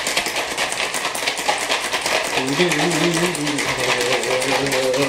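Big ice cubes rattling fast in a cocktail shaker being shaken hard. From about two and a half seconds in, a voice hums a wavering tune over the rattle.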